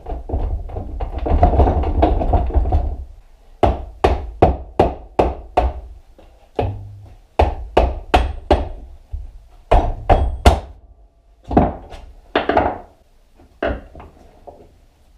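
Repeated hammer blows on a Honda Magna V4 engine's crankcase as the case halves are knocked apart, in runs of quick strikes about two a second with pauses between, after a rumbling scrape in the first few seconds.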